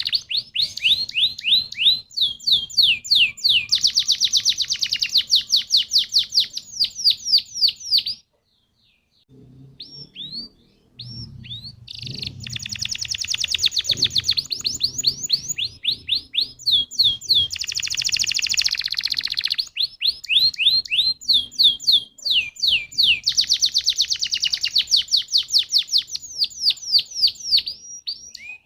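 Domestic canary singing long rolling trills of rapidly repeated falling notes. It breaks off for about three seconds around eight seconds in, then starts again.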